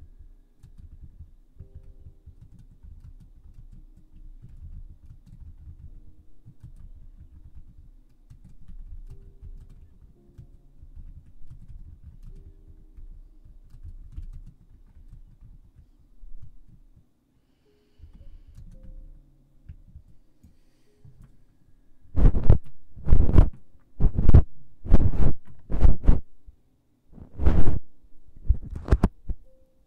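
Fluffy feather ear picks brushed over the ears of a binaural microphone for an ASMR ear massage: faint low rustling at first, then from about two-thirds of the way in, loud scratchy brushing strokes, about nine of them, a second or less apart.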